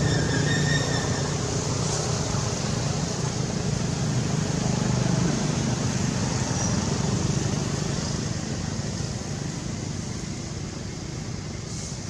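Motor vehicle running with steady road noise, slowly fading away.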